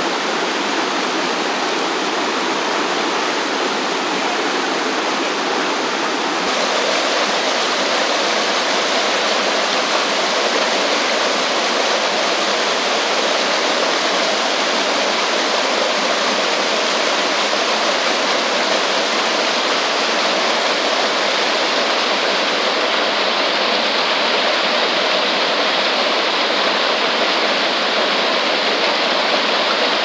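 Mountain stream water rushing and splashing over a small rocky cascade, a steady rush without a break. About six seconds in the rush gets a little louder and fuller.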